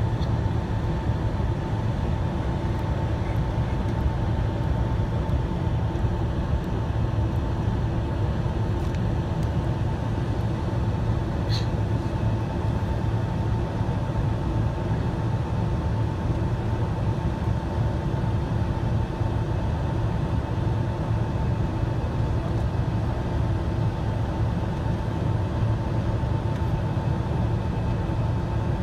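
Steady cabin noise of a Boeing 767-300ER on the ground with its engines at low taxi power: a deep hum with a thin steady whine over it, unchanging throughout.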